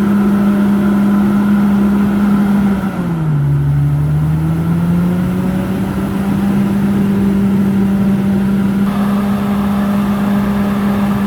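Komatsu D68ESS crawler dozer's diesel engine running steadily at high revs. About three seconds in it drops sharply in pitch, then climbs back to its former speed over the next few seconds.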